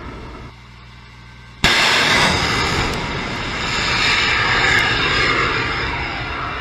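A missile firing from its launcher: about a second and a half in, a sudden loud blast, then the rocket motor's roar, slowly fading. Before the blast, a quieter steady rumble.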